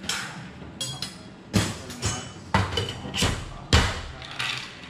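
Ice cubes knocking against the inside of a metal cocktail shaker tin as a cocktail is shaken with ice, in a series of sharp knocks roughly every half second to a second.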